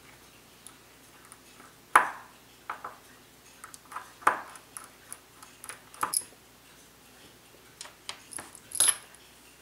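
Small, sharp metal clicks and clinks of a fine screwdriver working the tiny screws of a brass wheel holder, with a small brass part set down on the bench near the end.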